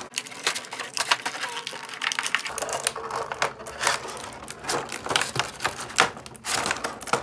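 Clear plastic blister tray of an action-figure package being handled and bent, crinkling and crackling in a dense, irregular run of sharp crackles.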